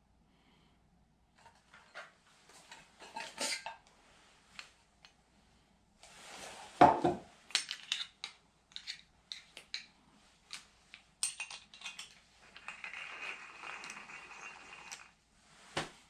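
A Porlex Mini stainless-steel hand coffee mill being handled: metal parts clink and click as it is taken apart and fitted together. A single heavy thud comes about seven seconds in, and a steady grating sound runs for a couple of seconds near the end.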